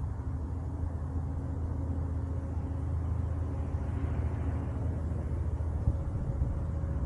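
Strong wind buffeting the microphone, a steady low rumble that flickers with the gusts, under a faint steady hum.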